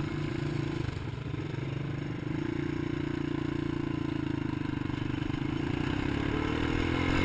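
ATV engine running under way, easing off briefly about a second in, then picking up and rising in pitch near the end as it accelerates, over a steady rush of noise.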